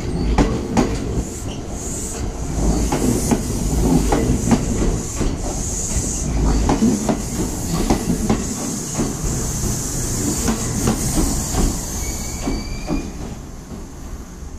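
Kintetsu 2430-series three-car electric train pulling into the platform and braking: wheels clicking over rail joints over a low rumble, with a steady high hiss. The hiss stops about twelve and a half seconds in, and the train grows quieter as it comes to a stop.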